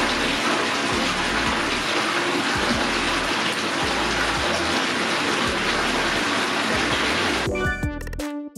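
Hot-spring water flowing steadily into a rock-lined open-air bath, a constant rushing splash. About seven and a half seconds in, upbeat electronic music with a beat takes over.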